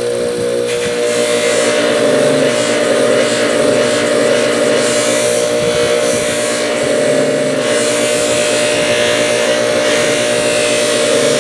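Motor-driven polishing wheel running with a steady hum while a pair of steel needle nose pliers is buffed against it, the rubbing hiss swelling and easing as the pliers are pressed and moved on the wheel.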